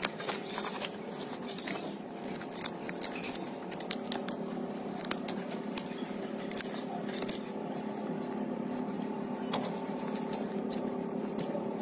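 Scissors cutting through the paper cone of a loudspeaker around its voice coil: irregular sharp snips and clicks, fewer in the second half, over a steady hum.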